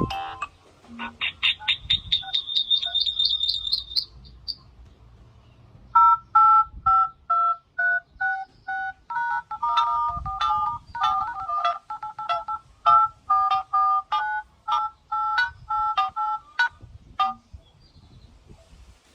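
Infinix phone ringtones of electronic beeps: a quick rising run of short chirps about a second in, then from about six seconds a rhythmic tune of short beeps jumping between two pitches, stopping a couple of seconds before the end.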